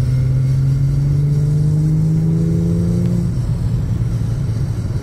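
Infiniti G35 sedan's VQ35HR V6 pulling under light acceleration on its quiet exhaust, the engine note rising slowly, then dropping away about three seconds in as the throttle comes off.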